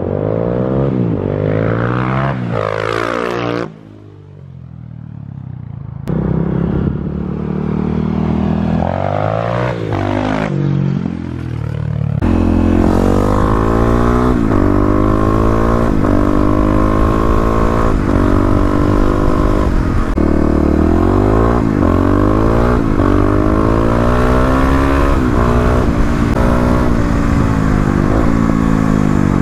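Kawasaki KLX250 single-cylinder engine, bored out to 351cc and fitted with an FMF Q4 slip-on and Megabomb header, revving in several short clips, its pitch rising and falling. About twelve seconds in it gets louder and steadier, the engine pitch repeatedly climbing and dropping over a rushing noise as the bike is ridden.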